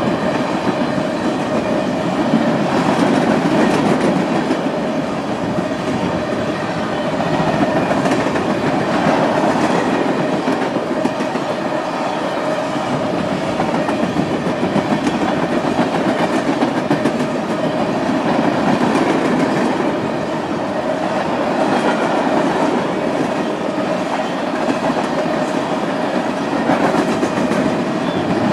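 Tank cars of a long freight train rolling past close by: a steady rumble and clatter of steel wheels over the rails, with a faint steady ringing tone underneath.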